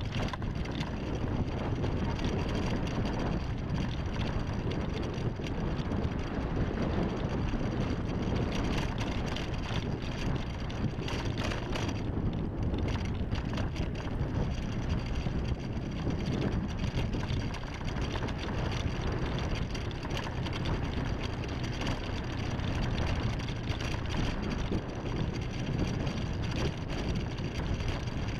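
Steady wind rushing over the microphone with a low engine rumble from the vehicle carrying the camera as it rides along a road.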